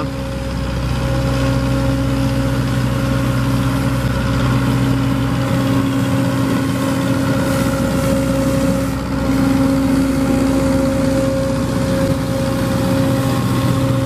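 An engine idling steadily: a constant low hum with a few steady tones that does not change.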